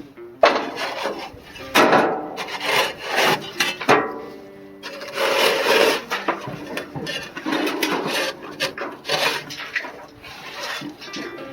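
Repeated irregular scraping strokes of a tool working rust and old grease out of the inside of an old gas grill, some strokes squeaking.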